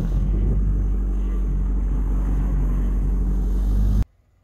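Quad bike (ATV) engine running at a steady pace while riding, heard from the rider's seat as a low rumble. It cuts off suddenly about four seconds in.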